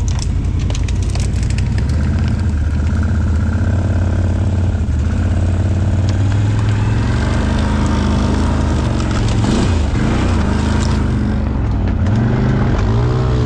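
ATV engine running under load while the quad pushes through rough terrain. The revs hold steady at first, then rise and fall repeatedly over the last few seconds.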